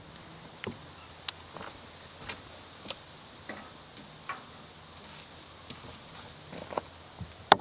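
Mason jar lids on freshly pressure-canned jars pinging as the jars cool and seal: scattered sharp clicks at irregular intervals, the loudest near the end.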